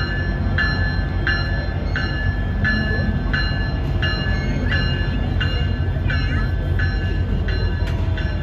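Locomotive bell ringing steadily, about one and a half strokes a second, over the low rumble of the train rolling slowly past as it pulls into the station.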